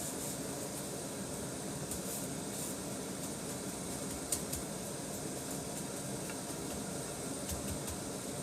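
Steady hiss and hum of kitchen background noise, with one light click about four seconds in.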